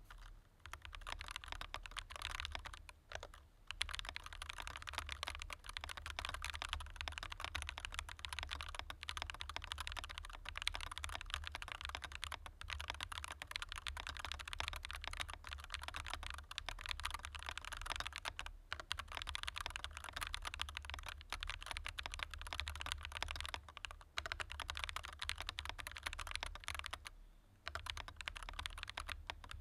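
Scyrox xPunk 63 keyboard with all its internal foam removed, being typed on continuously: a dense stream of keystrokes, with short pauses about three seconds in and near the end.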